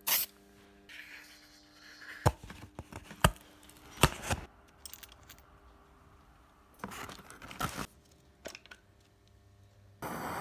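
Scattered sharp knocks and clicks, with scraping and rustling between them, as objects are handled and set down. A steady hiss starts near the end.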